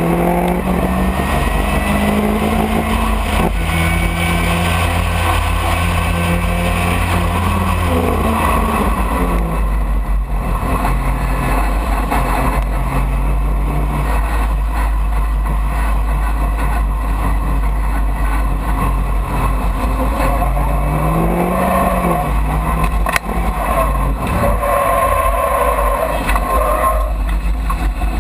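Open-cockpit race car's engine heard from the driver's seat while racing, its pitch holding under load, dropping sharply about nine seconds in and rising and falling again a little past twenty seconds as the driver changes gear, over a constant low rumble of wind.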